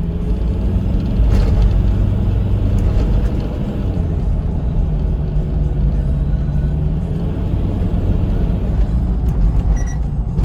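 Hyundai Terracan 4x4 on 33-inch off-road tyres driving, heard from inside the cab: a steady engine drone and road rumble. No clunks or knocks come from the suspension or underbody, a sign of an underbody in good condition.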